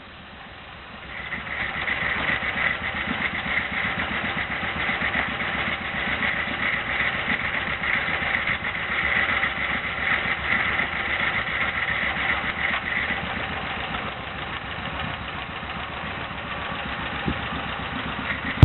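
An engine running steadily, building up over the first couple of seconds, with a high whine over it that fades out about two thirds of the way through.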